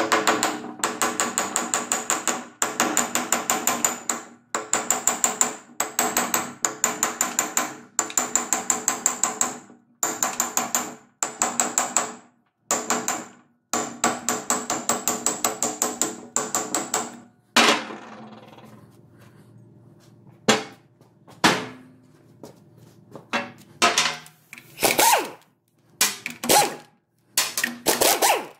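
Rapid metallic hammering in bursts of one to two seconds, about eight ringing blows a second, from a tool working on steel parts of a ZF16S151 truck gearbox being dismantled. From about two thirds of the way through, only scattered single knocks.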